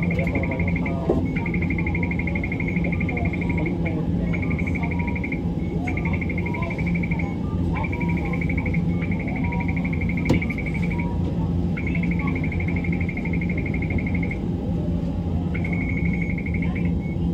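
Steady rumble and low hum inside a Hiroshima Electric Railway 1900 series tram (ex-Kyoto City tram). A high, rapid trill comes and goes over it in spells of one to three seconds.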